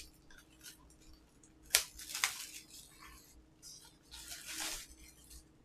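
A Blu-ray case being handled: a sharp plastic click a little under two seconds in, a few short scrapes, then a longer rustle of plastic and cardboard about four seconds in.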